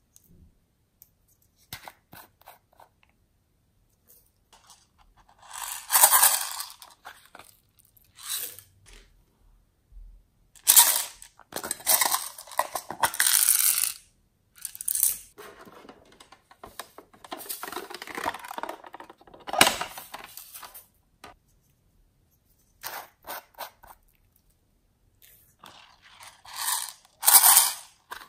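Small plastic containers and toys handled close up: lids clicking and opening, and small plastic beads rattling inside a clear tub, in short bursts with quiet gaps between.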